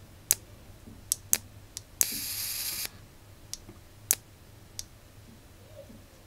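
Dual arc plasma lighter crackling and buzzing briefly, for under a second about two seconds in, then cutting out, with several sharp clicks before and after. The lighter, run from a bench supply at 4 V, cannot keep its arcs going, which the owner thinks means it needs more than 4 amperes.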